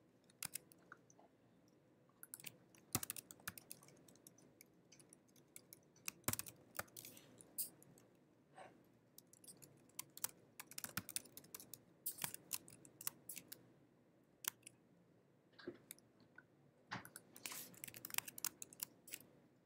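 Typing on a computer keyboard: faint, irregular keystrokes coming in short runs with pauses between them.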